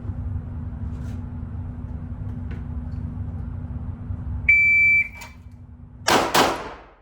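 A shot timer's start beep, one high steady tone about half a second long, then about a second and a half later two pistol shots fired about a third of a second apart. A steady low hum runs underneath until the beep.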